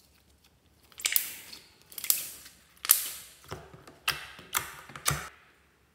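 Slime being squeezed and pressed by hand, giving about seven sharp crackling pops and crunches roughly every half second to second, each fading quickly.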